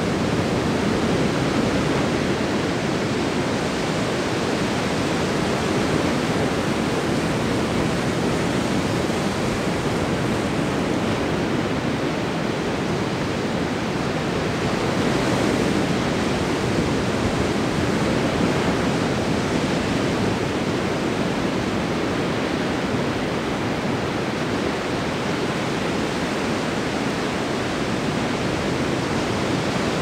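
Ocean surf: waves breaking and washing up a sandy beach as a steady rush of water that rises and falls gently in loudness.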